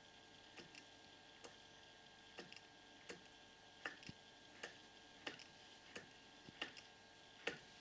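Gilera Runner Purejet two-stroke engine with a new Malossi 70cc cylinder kit being turned over slowly, giving a light, sharp click about every two-thirds of a second, some in quick pairs. The click comes from the crankshaft's connecting rod at the top of the piston stroke, and the owner is unsure whether it is normal.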